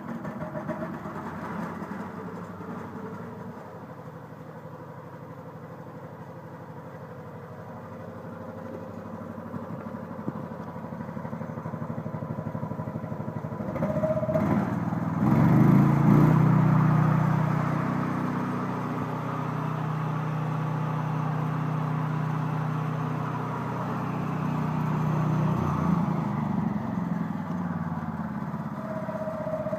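Engine of a homemade swing blade sawmill running after its trial electric start. It runs steadily, is revved up about halfway through, held at higher speed for about ten seconds, then eased back down.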